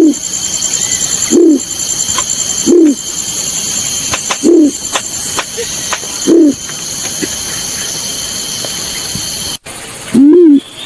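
Call of the balorinay bird, used as a lure recording: single low hooting coo notes, each rising then falling, repeated about once every one and a half seconds. There is a pause of a few seconds near the end, then an abrupt break and the notes start again. A steady high-pitched buzz runs underneath.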